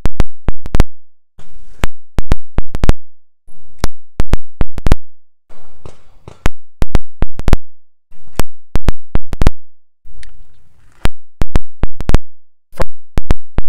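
Taurus G2C 9mm pistol firing in quick strings of three to five shots, several shots a second, with short pauses between strings. The pistol keeps cycling shot after shot, working normally after the warranty repair of its broken ejector.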